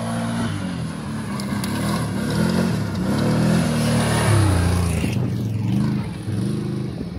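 Engine of a Can-Am quad bike running under throttle as it is ridden, its pitch rising and falling several times as the rider revs and eases off.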